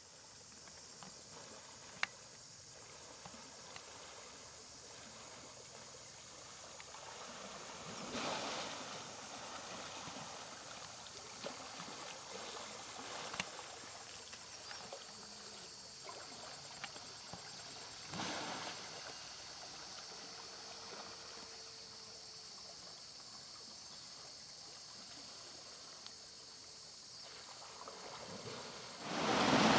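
Faint water sloshing and churning in a canal as a wild elephant moves and struggles in it, swelling twice, over a steady high-pitched drone.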